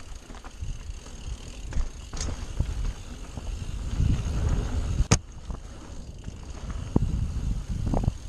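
Mountain bike ridden over a dirt trail: steady low rumble of tyres and wind, with scattered rattles and knocks from the bike, a sharp knock about five seconds in.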